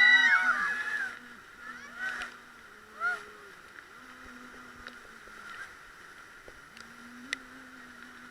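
Rafters shouting and whooping loudly in the first second, with shorter cries at about two and three seconds, over the steady rush of river water. A single sharp click comes near the end.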